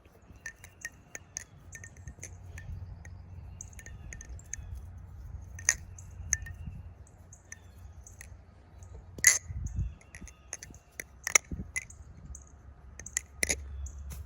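TheOne Alien balisong being flipped: its handles click and clink against each other and the pins, many irregular sharp metallic clicks with a few louder snaps.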